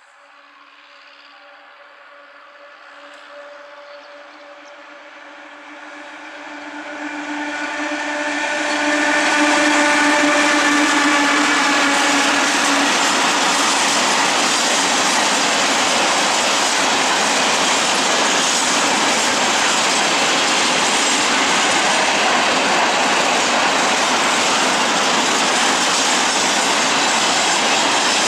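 Freight train hauled by an EU07 electric locomotive and a 6Dh-1 diesel locomotive approaching and passing: a steady hum grows louder over the first nine seconds or so, with a brief higher whine as the locomotives go by. A long string of cement hopper wagons then rolls past with loud, steady wheel-on-rail noise.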